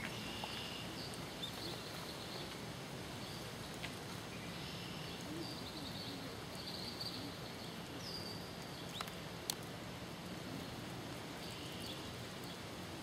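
Steady outdoor background hiss with a few faint, short high-pitched chirps scattered through it and a sharp click about two-thirds of the way in.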